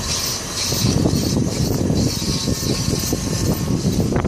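Road and tyre noise right at a Nissan Altima coupe's front wheel while driving over dirt, with a rapid, irregular scraping rattle from the wheel. The scraping comes from the brake rotor's heat shield rubbing on the rotor after a front wheel hub replacement.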